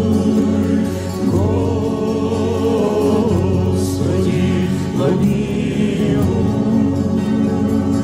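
Music: the close of a slow church-style song, with voices holding long notes in choir-like harmony over accompaniment.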